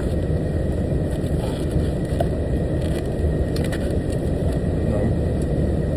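Steady low rumble of an idling truck heard inside the cab, with a few faint light clicks.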